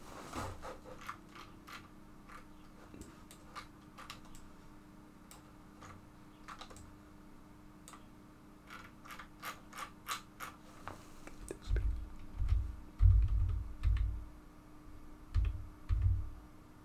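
Computer mouse clicking and scroll-wheel ticking, scattered irregular clicks that bunch up near the middle, over a faint steady hum. In the last few seconds a handful of dull low thumps are the loudest sounds.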